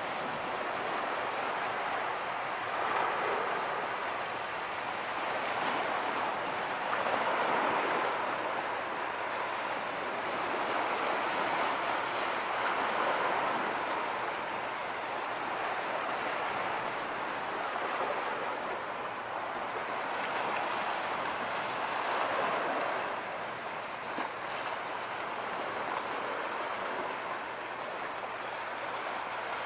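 Small waves washing at the river's edge, a steady rush of water that swells and eases every few seconds.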